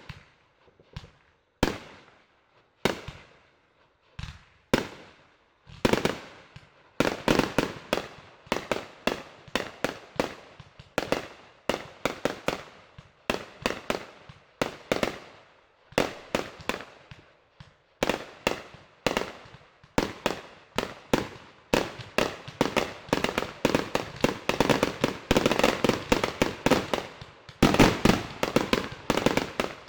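Fireworks going off: separate bangs about once a second for the first six seconds, then a rapid, dense barrage of bangs that grows thicker toward the end.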